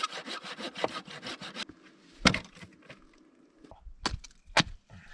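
Wood being worked by hand: a quick, even run of rasping wood strokes, about eight a second, stops after about a second and a half. Four sharp cracks of splintering wood follow, spaced out through the rest.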